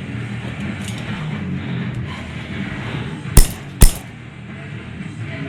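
Airsoft gun firing two sharp shots about half a second apart, a little past halfway through.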